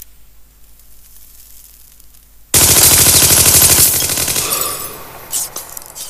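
Sudden loud burst of rapid automatic gunfire about two and a half seconds in, lasting about a second and a half before trailing off.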